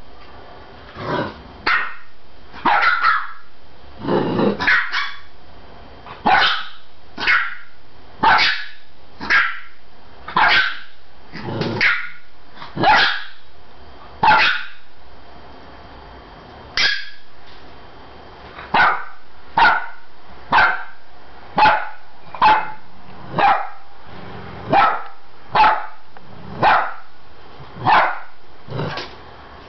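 A young dog barking in short, sharp, mostly high-pitched barks, about one a second, with a pause of about three seconds midway. A few barks about four and twelve seconds in are deeper.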